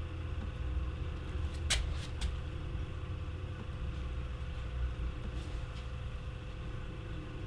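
Low steady room hum with a faint steady tone above it, broken by a few short clicks of a laptop's keys and touchpad, the sharpest about two seconds in.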